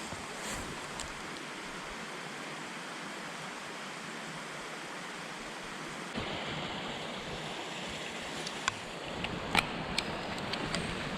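Mountain stream running steadily, its rushing shifting and growing a little louder about six seconds in, with a few sharp clicks near the end.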